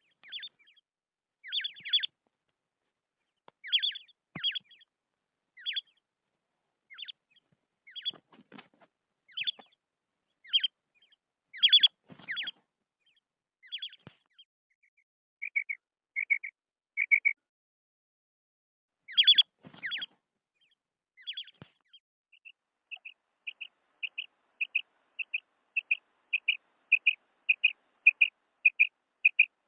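Female quail calling: short, sharp, downward-sliding call notes in irregular bunches, then about two-thirds of the way through a steady run of short, evenly spaced notes, roughly two a second.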